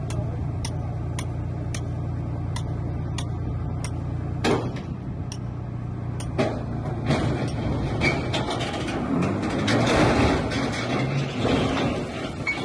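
Crane truck's engine running steadily with a light regular ticking, then two heavy knocks as the boulder comes down onto the flatbed. In the second half a growing clatter and rumble builds as the top-heavy loaded truck tips over the edge and falls down the slope.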